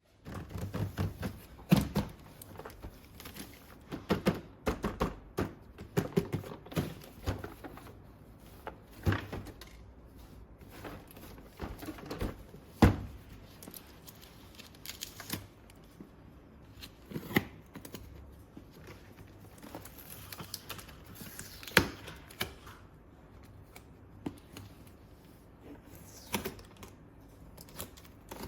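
Hands unboxing a plastic toy set: packaging rustling and tearing, with irregular clicks and knocks of small plastic parts being handled, busiest in the first few seconds and sparser after.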